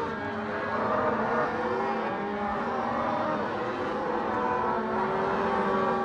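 A herd of Simmental–Black Angus cross cattle bawling and mooing, many calls overlapping into a continuous din.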